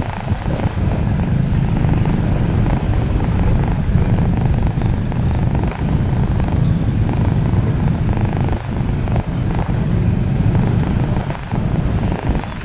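Vehicle engine and road noise: a loud, steady low rumble.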